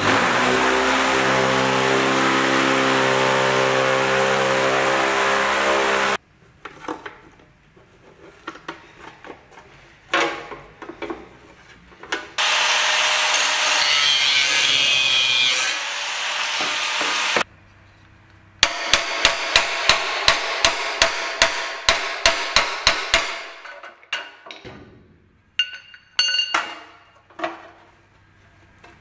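Workshop tool sounds. A steady motor runs for about the first six seconds, and a second stretch of steady machine noise comes midway. Later there are rhythmic strokes about three a second, like hand sawing, then scattered light taps with brief metallic ringing.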